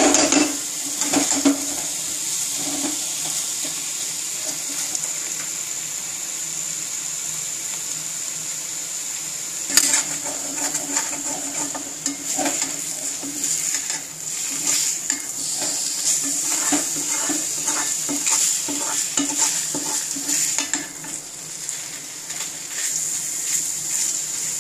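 Metal spatula scraping and turning drumstick masala around a kadai, with irregular knocks and scrapes against the pan over a steady, high sizzle: the masala being dry-roasted on a low flame.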